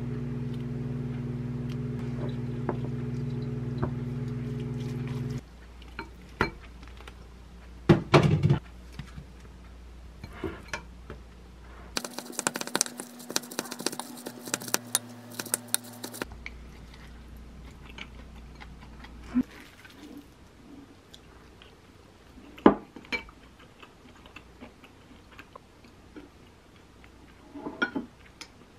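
A wooden spoon stirring rice and vegetables in a glass mixing bowl, scraping and knocking against the glass, with scattered clinks and taps of utensils and dishes. A steady low hum stops about five seconds in.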